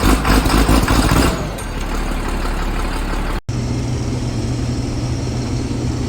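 Combine harvester engine running. It is loud and noisy for about the first second, then quieter; after a brief dropout about three and a half seconds in, it settles into a steady low hum.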